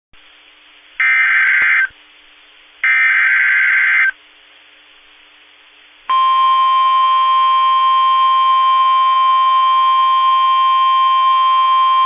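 Emergency Alert System SAME header: two short, harsh digital data bursts about a second apart, then from about six seconds in the steady single-pitch NOAA Weather Radio warning alarm tone. This marks the start of a new alert message.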